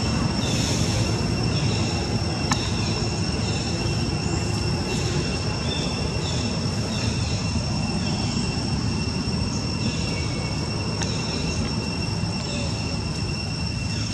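Steady high-pitched insect drone of two even tones, over a steady low rumble, with short faint chirps coming every second or so.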